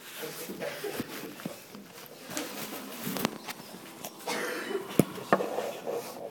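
Rustling and shuffling noise in a small room, broken by four sharp clicks, the loudest about five seconds in.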